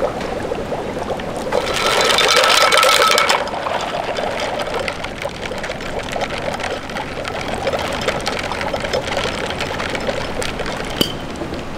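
Steady kitchen or restaurant background noise with light clatter. A louder rushing sound, like liquid pouring, rises about one and a half seconds in and lasts roughly two seconds.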